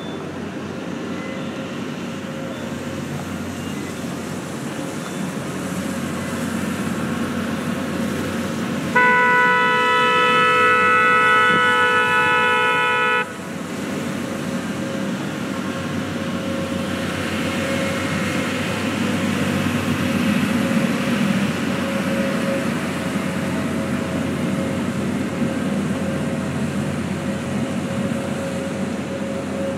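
A boat horn sounds one long steady blast of about four seconds. Afterwards the engine of a passing Disney Friendship water-taxi boat runs steadily, growing louder as the boat goes by.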